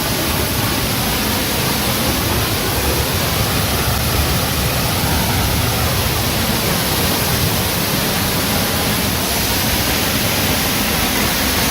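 Rain-swollen waterfall crashing down right in front of the microphone, a loud, steady rush of falling water.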